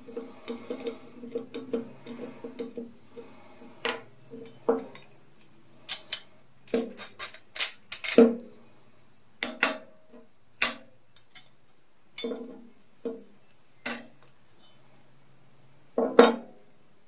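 Small metal saw vise being taken apart by hand. A quick run of small ticks as the spring and jaws are worked comes first, then a string of separate metal clinks and knocks as the pin and jaws come apart and are set down on the wooden bench. The loudest knocks come near the middle and again near the end.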